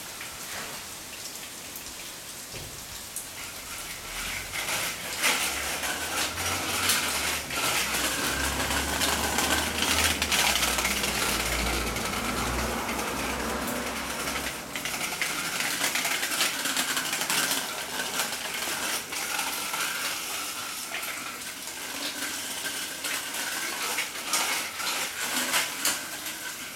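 Small child's bicycle with training wheels rolling over paving, with rattling and clicking over a steady hiss. It is louder in the middle, with a low rumble.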